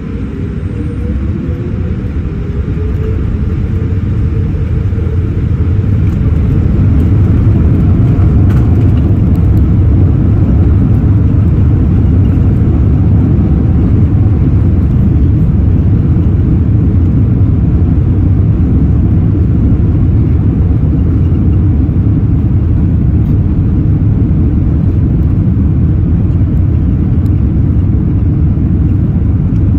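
Boeing 787-8 jet engines spooling up to takeoff thrust, heard from inside the cabin. A low rumble grows louder over the first several seconds, then holds steady and loud through the takeoff roll.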